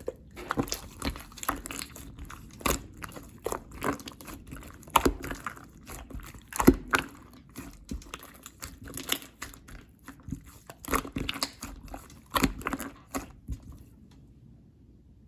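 Clear slime being squeezed and pressed by hand, making a rapid, irregular run of wet clicks and pops that stops near the end.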